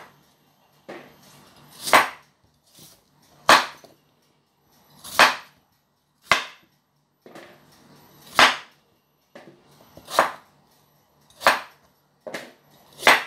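Chef's knife cutting raw potatoes into cubes on a wooden chopping board: a slow series of about eight sharp knocks of the blade on the board, roughly one every one and a half seconds, each preceded by the softer sound of the blade going through the potato.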